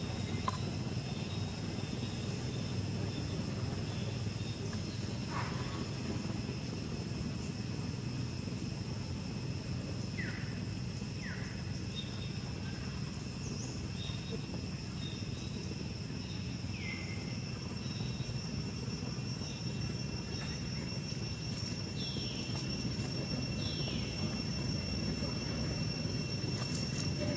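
Steady outdoor rumble with constant high, insect-like tones, and every few seconds a short, high, falling squeak.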